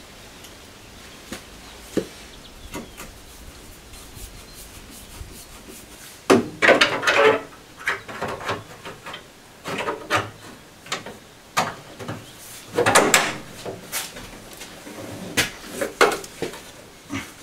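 A car headlight unit being worked into its mount by hand: a few light clicks, then from about six seconds in irregular bursts of scraping and rubbing with knocks as it is pushed and fastened into place.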